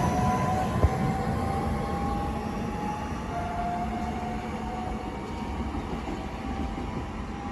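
Train moving through the station, its rumble slowly fading, with thin high squealing tones from the running gear and a single sharp click about a second in.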